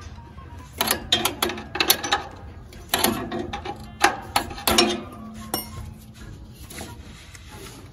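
Metal clanking and clinking from tools and parts being handled, a rapid cluster of sharp knocks, some with a short ring, that thins out in the second half.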